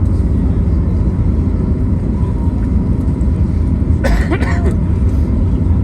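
Cabin noise inside a Boeing 737 MAX during landing: a loud, steady, low rumble of the CFM LEAP-1B engines and airflow, with a brief higher sound that falls in pitch about four seconds in.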